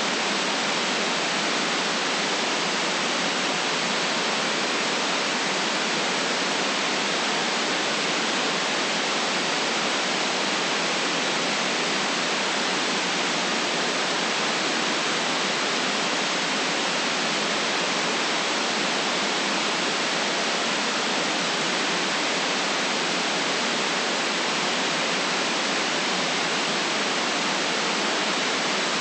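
Steady white noise: an even, unchanging hiss with no deep bass and nothing else in it.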